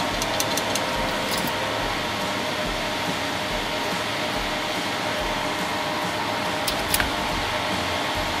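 Steady whir of the Stratasys Fortus 250 3D printer's fans, running with the door open, with a few light clicks, two of them close together near the end.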